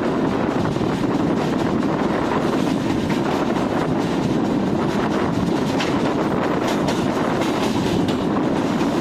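Express passenger train running on the rails: a steady rumble of wheels on track with faint clicks now and then.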